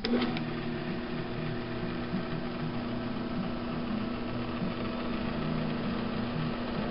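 Delta 15-231 drill press switched on with a click, then its 3/4 horsepower motor and spindle running at a steady, even hum. Nice and quiet, with hardly any vibration: the machine is in good running order.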